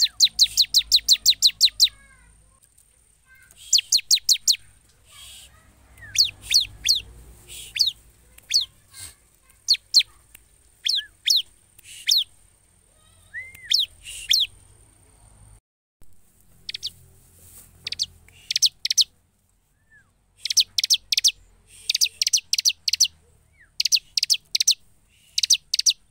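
Bar-winged prinia (ciblek) singing: rapid runs of sharp, high chirps, about five a second, repeated in bursts with short pauses between.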